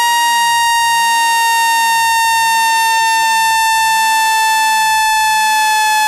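Electronic water-eject tone played to vibrate water out of a phone's charging port: a loud, steady, buzzy high tone with many overtones, slowly falling in pitch. Faint sweeping tones rise and fall beneath it, and the sound briefly drops out about every one and a half seconds.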